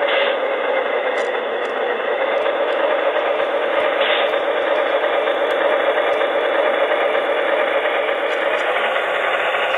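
Sound decoder of a Broadway Limited Imports Paragon HO-scale Alco RSD-15 model playing a recorded Alco diesel engine at a steady idle through the model's small speaker.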